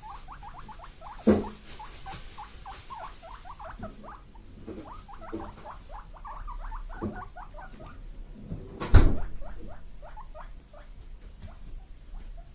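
Guinea pigs squeaking and wheeking in quick, short calls, several a second, as they beg for a vegetable treat. Two loud knocks break in, one about a second in and a louder one near three quarters of the way through.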